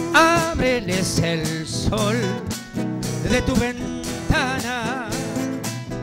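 A small band playing an instrumental passage: acoustic guitars strummed over electric bass and drums, with a lead melody on top that wavers strongly in pitch during the first two seconds and again about four seconds in.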